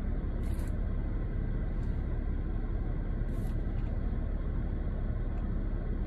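Steady low rumble inside a stationary car with its engine running, with a few faint soft ticks.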